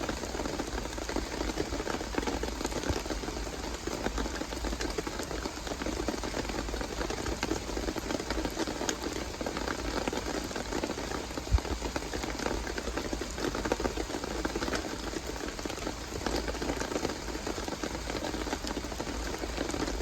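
Steady rain falling on a surface, many fine drops, with one short low thump about halfway through.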